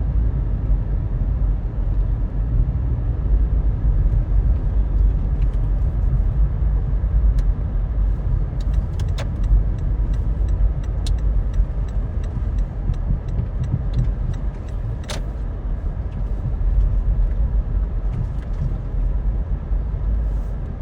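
A car being driven: a steady low rumble of engine and tyres on the road. Through the middle comes a run of light, evenly spaced clicks, with one sharper click near the end of the run.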